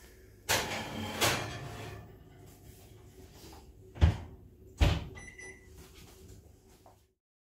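Kitchen oven door opened and a ceramic baking dish slid in with a scraping rattle, then two sharp knocks as the oven is shut, followed by a short electronic beep.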